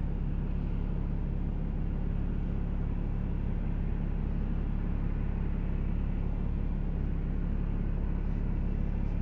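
Steady low rumble of a running motor vehicle, with a constant low engine hum and no change in speed.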